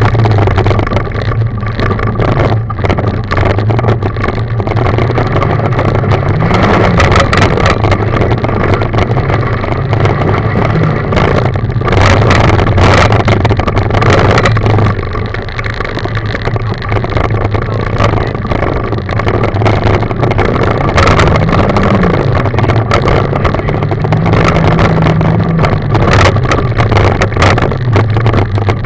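Rally car engine running hard, heard from inside the cabin, its note climbing and dropping a few times with the throttle and gear changes. Gravel and stones clatter against the underbody throughout, with tyre and road noise.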